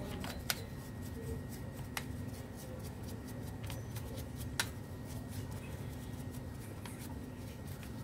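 Hands and tools working on a scooter's front brake caliper and pads: a few sharp clicks, about half a second, two seconds and four and a half seconds in, over a steady low hum.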